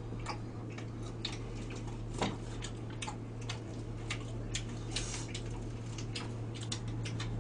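Small, irregular clicks of metal chopsticks and spoons against bowls and plates during a meal, over a steady low hum.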